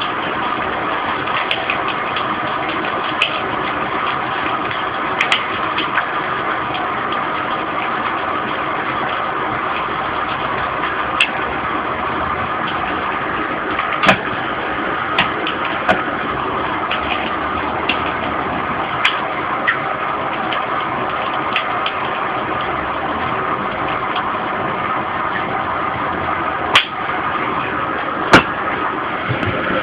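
Homemade copper-coil alcohol jet stove burning with a steady hiss under a frying pan. Sharp pops now and then from the eggs and bacon frying in it, the loudest about halfway through and near the end.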